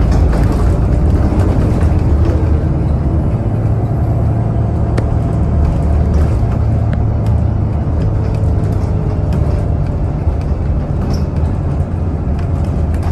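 Bus engine running with a steady low drone, with light rattles over it.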